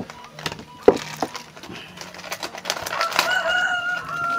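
A rooster crowing once: one long, held call starting about three seconds in. A few sharp clicks and knocks come before it.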